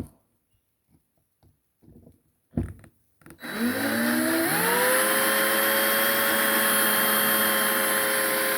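A few light handling clicks, then a small handheld electric drill spins up with a rising whine about three and a half seconds in and runs steadily before stopping near the end. The drill is driving a blunt 2 mm bit into a die-cast metal model, where the bit keeps skipping off the surface.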